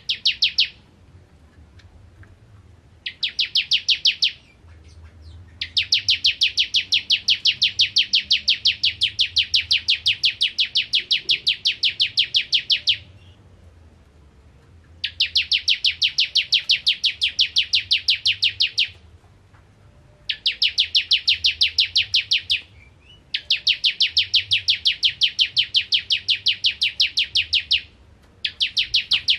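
A caged bar-winged prinia (ciblek kristal) singing loudly in long runs of one sharp, high note repeated very rapidly and evenly, a rattling, rapid-fire song. Seven runs, the longest about seven seconds, broken by pauses of a second or two.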